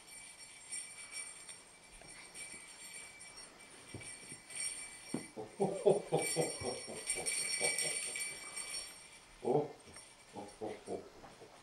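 Sleigh bells jingling steadily, growing louder in the middle and then fading, as the sound of Santa's reindeer. Twice a quick run of short, low pulses sounds under the bells.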